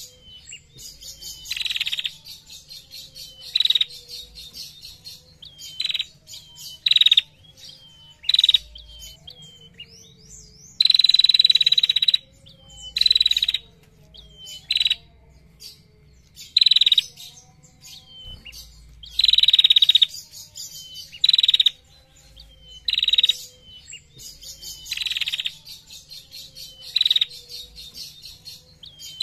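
Female prenjak (prinia) singing: a long run of loud, rapid trills ("ngetir"), one every second or two, most short and two lasting about a second near the middle, with faint thin chirps in between.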